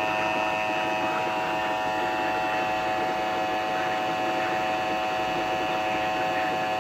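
Emergency Alert System attention signal over FM radio: the two-tone alert tone held steady and unbroken, with a faint hiss of reception noise beneath. It announces that an emergency message is about to be broadcast.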